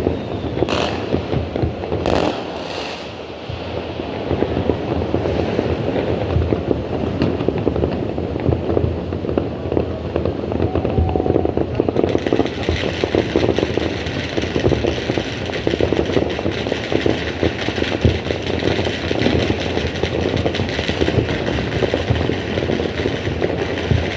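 Fireworks going off: a few sharp bangs in the first three seconds, then a dense, continuous crackle and rumble of many explosions that grows brighter about halfway through.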